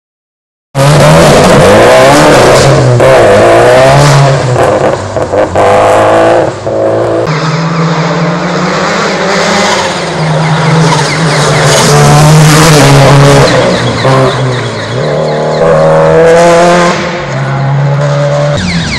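Rally car engines revving hard on a gravel stage, holding high revs in steady stretches and changing pitch in steps every second or two, with rising sweeps near the end.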